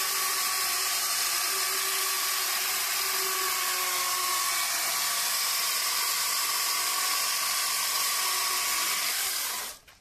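Two-man electric chainsaw with a long bar running at full speed while cutting through a hardwood log: a loud, steady, high-pitched whine with a hiss of chain cutting. It cuts off suddenly near the end.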